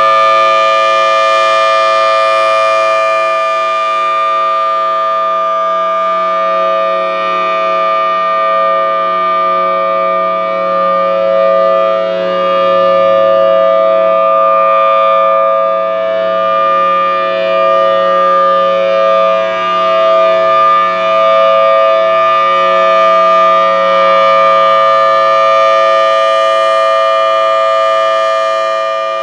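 Federal Signal Thunderbolt 1000T outdoor warning siren sounding its steady Alert signal: a loud, held two-note chord that keeps an even pitch and swells and fades slightly in loudness.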